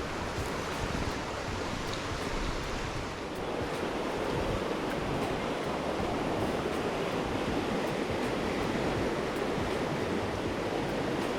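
Stream water rushing steadily, the stream running high after rain. It swells a little about four seconds in.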